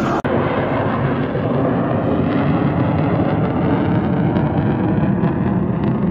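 Tailless flying-wing jet aircraft passing overhead, its engines making a steady, loud rumble, with a brief dropout just after the start.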